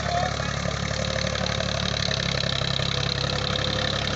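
Deutz-Fahr Agrolux 45 4WD tractor's diesel engine running steadily while it pulls a cultivator through soil.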